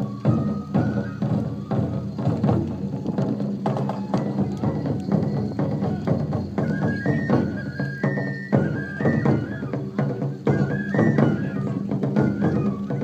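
Music: rapid drum and wood-block strikes under a high melody that steps up and down in short held notes.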